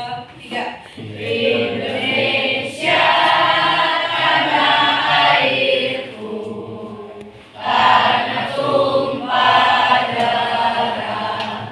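A class of students singing a song together in chorus. The singing dips about six seconds in and picks up again loudly near eight seconds.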